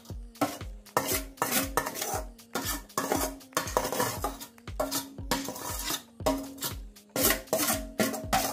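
Metal spoon scraping and clinking against a stainless steel bowl as sliced vegetables are scooped out, in many short strokes, over background music with a steady beat.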